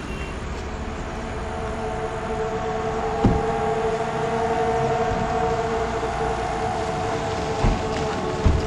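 A sustained, slowly swelling drone of steady pitched tones, like a suspense score's synth pad, with deep thuds about three seconds in and twice near the end.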